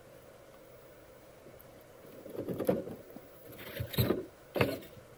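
Traxxas TRX-4 Defender RC crawler, with its Hobbywing Fusion motor, driven against a rock: three short, rough bursts of motor, gear and tyre noise come about two, three and a half and four and a half seconds in, with near quiet before them.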